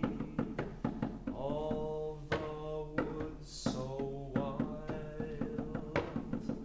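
Male voice singing the text slowly in long held vowels on a few pitches, with irregular sharp knocks and taps of fingers and knuckles on the closed body of a grand piano.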